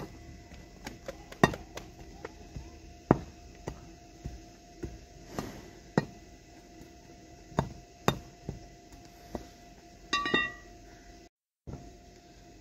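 Irregular sharp knocks of a metal bar striking hard earth around the base of an upright wooden tether stake, with a few louder strikes among lighter taps. Near the end comes a short high call lasting about half a second.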